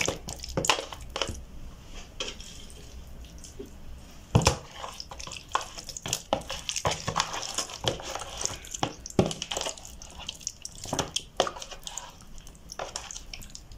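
Hands squishing and rubbing a thick spice-paste marinade into raw chicken pieces in a plastic container: an irregular run of short wet squelches and slaps, with a sharper one about four seconds in.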